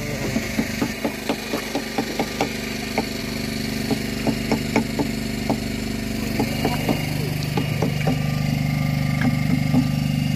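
An engine on a fishing boat running steadily, with many sharp irregular knocks on top, a few each second.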